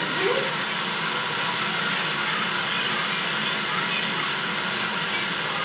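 Steady rushing air noise of a running fan, unbroken and even, with faint voices in the background near the start.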